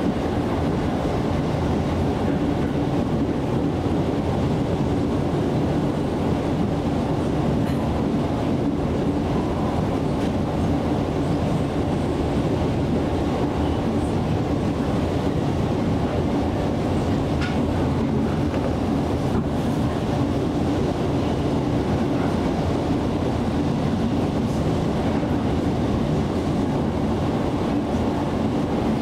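KAI Commuter electric train running at steady speed, heard from inside the carriage: an even rumble of wheels on rails and the running gear.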